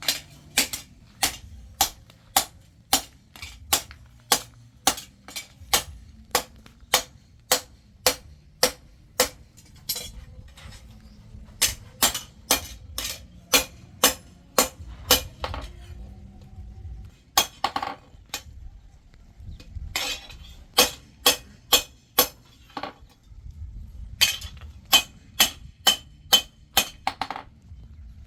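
Hand hammer striking steel on an anvil while forging knife blades: sharp ringing blows about two a second, in runs broken by short pauses.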